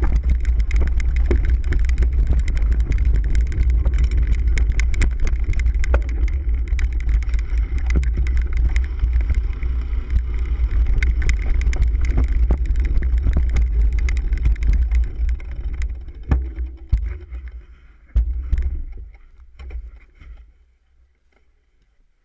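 Cyclocross bike riding over rough dirt and leaf-covered ground, heard from a handlebar-mounted camera: a heavy low rumble of vibration and wind on the microphone with constant rattling and knocking from the bike. The noise thins out over the last several seconds and dies away almost to nothing near the end.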